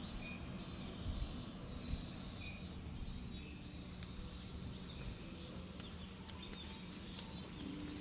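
Outdoor ambience: wind rumbling on the microphone under high buzzing calls, likely insects, that come and go in short bursts.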